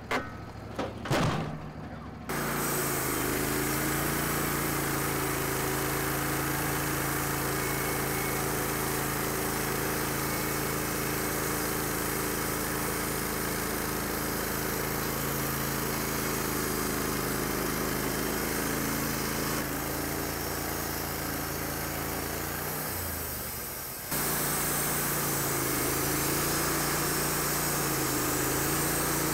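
Wood-Mizer LT15 Wide bandsaw mill sawing a cottonwood log: its engine runs steadily under load with the hiss of the band blade in the cut. A few knocks come from the log being handled on the bed in the first two seconds, then the saw sound starts abruptly. Its note sags briefly about 23 seconds in before running steady again.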